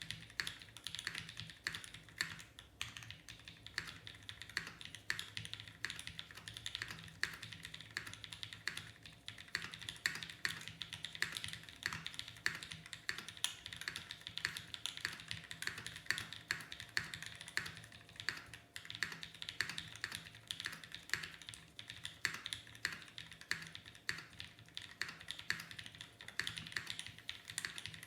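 Continuous typing on a custom mechanical keyboard with lubed tactile Holy Panda switches, GMK doubleshot keycaps and an aluminium case: a dense, irregular run of keystroke clacks without a break.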